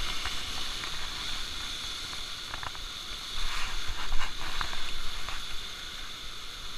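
Sea surf washing and breaking against shoreline rocks, rising in a louder surge a little past the middle.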